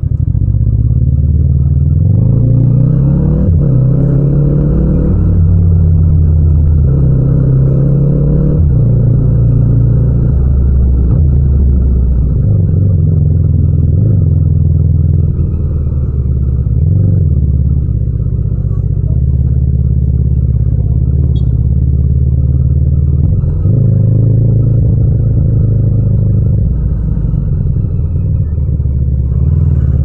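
Yamaha MT-07's 689 cc parallel-twin engine under way at low road speed. The revs climb from about two seconds in, drop off sharply near nine seconds, then rise and fall through the lower range, with another pull around twenty-three seconds.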